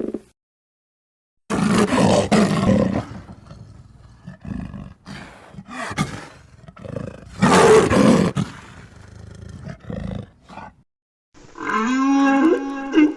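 Giant-monster (kaiju) roar sound effects: two long, rough roars with quieter growls between them, then near the end a different, higher cry with a clearer, more musical pitch.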